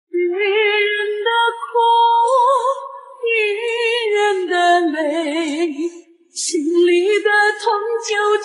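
A woman singing long, wavering held notes. The singing breaks off briefly about six seconds in, then resumes.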